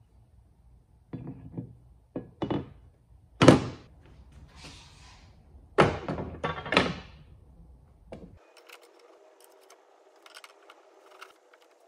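Heavy metal lathe parts being set down and fitted onto a steel stand: a series of knocks and clanks over about six seconds, the loudest about three and a half seconds in. After that comes a faint steady hum with a few light clicks.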